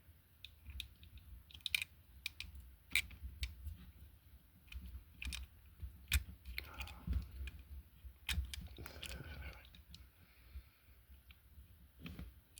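Irregular small metallic clicks and scrapes of homemade picking and tensioning tools working inside a Squire 660 lever lock, with a couple of short scraping stretches in the middle.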